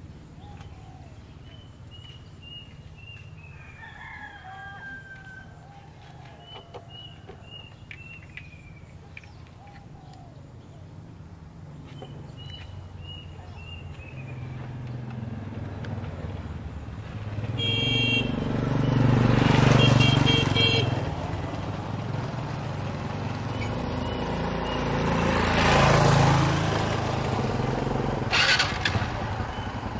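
Small birds singing in short descending phrases, with a rooster crowing once, over a quiet rural background. From a little past halfway, motor vehicles pass twice, each swelling and fading, with a few short horn beeps as the first goes by.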